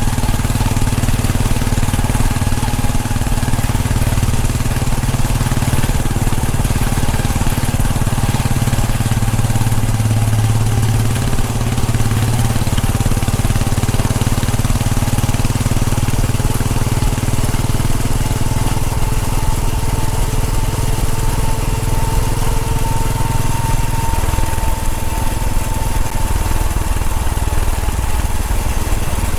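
Royal Enfield Bullet 500's single-cylinder engine running steadily under way. Its low note softens somewhat near the end.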